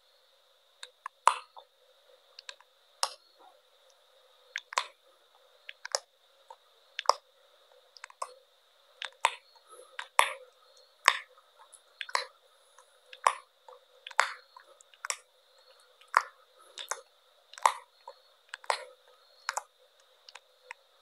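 A series of sharp clicks and clacks, about one a second at uneven spacing, as a row of dominoes topples one onto the next. A faint steady high-pitched whine runs underneath.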